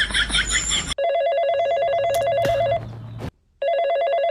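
Electronic telephone ringing: a warbling trill rings about a second in, pauses briefly, and rings again.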